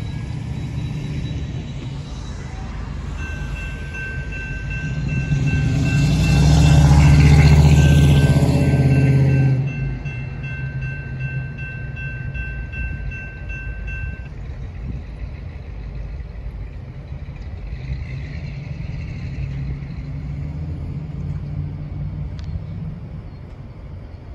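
Norfolk Southern GP38-2 diesel locomotives, with EMD 16-645 V16 engines, rumbling as the local train moves slowly on curved track. A steady high squeal from the train runs for about ten seconds. The engine noise swells to its loudest a few seconds in and drops off sharply about ten seconds in.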